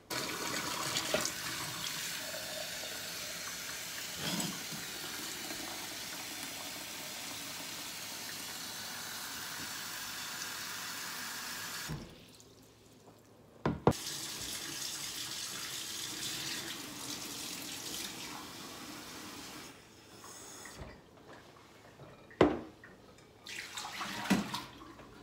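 Kitchen faucet running hot water into a glass bowl in a stainless steel sink. The flow stops about halfway through, then starts again with a sharp click and runs for several more seconds. A couple of sharp knocks come near the end.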